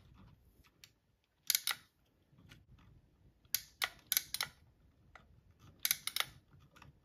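Rosin flux crackling and popping on hot solder as stranded copper wire is soldered: short clusters of sharp crackles about four times, with quieter ticks between.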